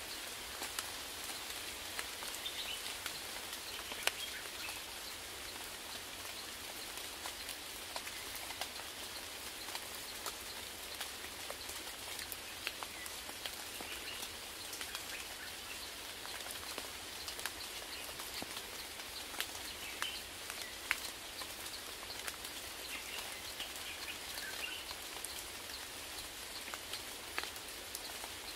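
Steady rain falling, with sharp ticks of single drops striking close by. Faint short bird calls come through now and then.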